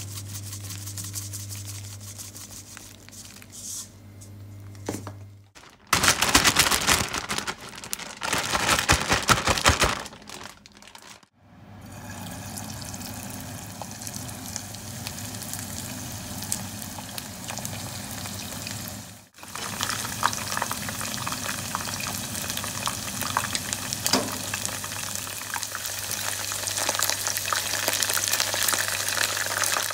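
Coating powder shaken into a zip-top plastic bag of marinated chicken, then the bag shaken hard for about four seconds to coat the pieces. From about 11 seconds in, chicken pieces for karaage deep-frying in hot oil in a small pot, a steady sizzle that grows fuller near the end, with chopsticks turning the pieces.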